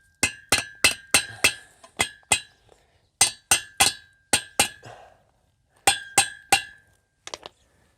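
A hammer striking metal in quick runs of blows, about three a second, each blow ringing: the awning's post base being hammered down onto its anchor bolts. There are three runs, with fainter taps near the end.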